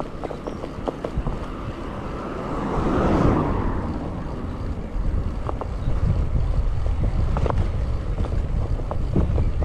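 Wind buffeting a handlebar-mounted action camera's microphone on a moving road bike, over a steady low tyre-and-road rumble, with scattered light clicks and rattles from the bike. A broader swell in the noise rises and fades about three seconds in.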